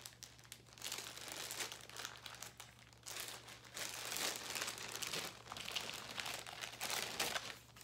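Crinkling and rustling of packaging being handled, in irregular bursts that are loudest in the second half.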